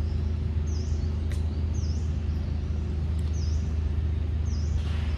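A bird repeating a short, high chirp every second or so over a steady low hum.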